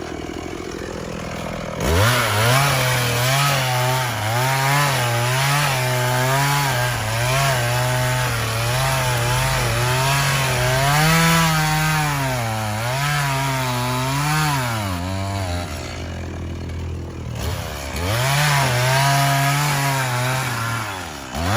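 Chainsaw running and cutting wood, its engine pitch rising and dipping as the bar loads and frees in the cut. It starts about two seconds in, stops about fifteen seconds in, and runs again from about eighteen seconds in.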